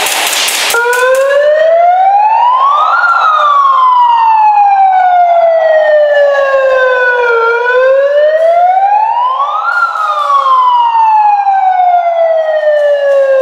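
Siren wailing in a slow rise and fall, two full cycles, each climbing for a couple of seconds and sliding down for about four, after a brief burst of noise at the very start.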